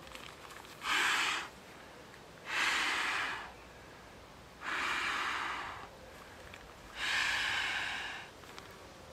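A man blowing four long breaths by mouth into the valve of an inflatable camping pillow or sleeping pad, each breath a breathy rush of about a second with short pauses between.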